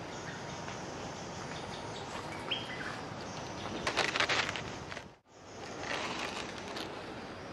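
Steady outdoor background hiss with a brief rising bird note about two and a half seconds in, then a loud rustling clatter around four seconds as a hand grabs the hanging woven bamboo bird cage. The sound cuts out for an instant about five seconds in.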